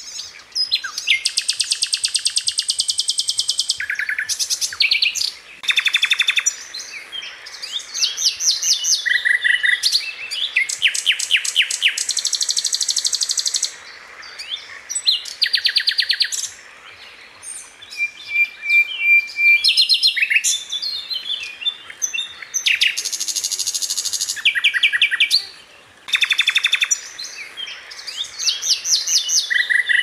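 Sikatan londo, a flycatcher, singing loud, fast trilled phrases mixed with sharp high chirps. The phrases come one after another, each lasting a second or two with short pauses between them.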